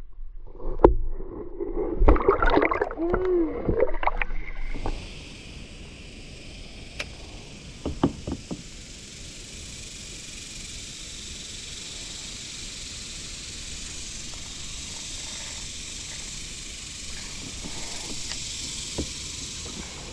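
Muffled underwater splashing and gurgling with several knocks, heard through a submerged camera for about five seconds. The sound then opens out abruptly into a steady high hiss above the water, with a couple of light knocks about eight seconds in, as a kayak drifts.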